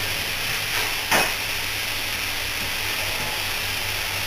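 Morris 1100's four-cylinder A-series engine running steadily while driving a turret lathe, with a steady low hum and one sharp knock about a second in. The engine has not been rebuilt and runs on low oil pressure, and it makes knocking noises.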